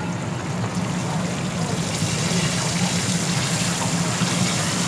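Masala-coated whole fish frying in a wide pan of hot oil: a steady sizzling and bubbling that grows louder about two seconds in, as a fish goes into the oil, over a steady low hum.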